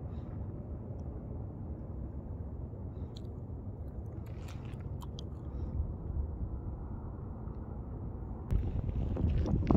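Wind on the microphone as a steady low rumble, with a few faint crunches midway. Near the end, louder footsteps crunching on a gravel trail.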